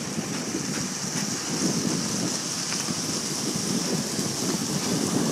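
Wind buffeting the microphone, a choppy rumble over a steady hiss, with no clear engine or voices.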